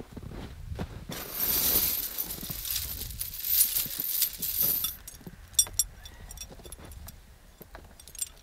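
Steel tyre chains being fitted to a tyre: a stretch of scraping and rustling, then scattered light metallic clinks and jangles of the chain links.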